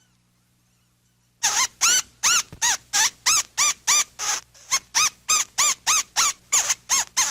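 A monkey giving a rapid series of short, high, rising-and-falling calls, about three a second, starting a little over a second in.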